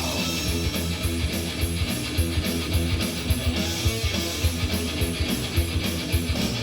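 Heavy metal music: electric guitar riffing over a fast, steady beat.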